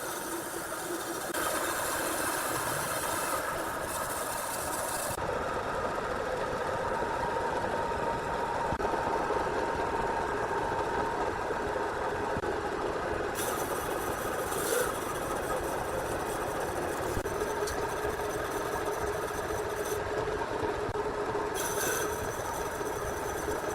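Sawmill machinery running with a steady engine-like hum and whine, its upper sound changing abruptly a few times.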